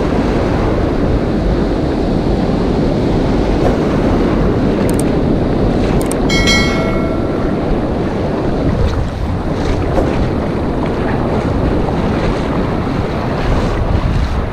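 Strong wind buffeting the microphone over surf breaking and washing up a shallow sand beach. A short chime sounds about six seconds in.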